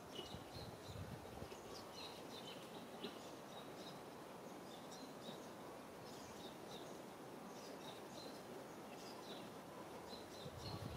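Faint open-air background with small birds chirping in short, high notes scattered throughout.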